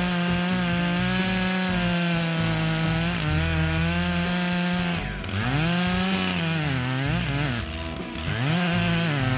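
Stihl MS 661 C two-stroke chainsaw running at high revs, cutting wood; about five seconds in its pitch sags and recovers twice as the chain loads in the cut.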